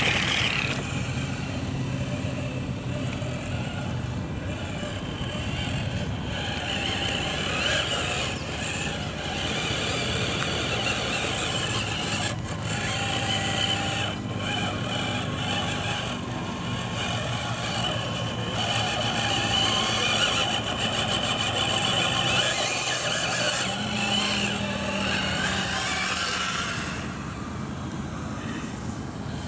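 Scale RC crawler trucks working over rocky dirt, their electric motors and gearboxes giving a steady high whine.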